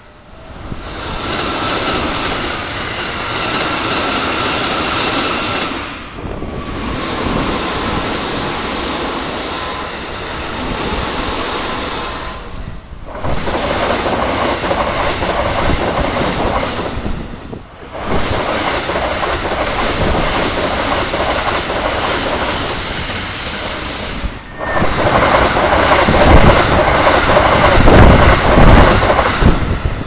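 Red Keikyu electric commuter trains passing a level crossing at speed, wheels clattering over the rail joints, in several separate passes with abrupt breaks between them. The loudest and deepest pass is near the end.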